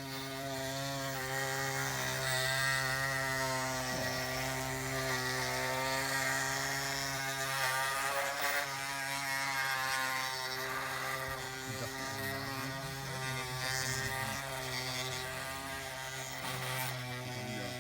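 Electric drive motors and hydraulic pump of radio-controlled scale construction machines whining steadily, the higher whine wavering up and down in pitch as the models are worked.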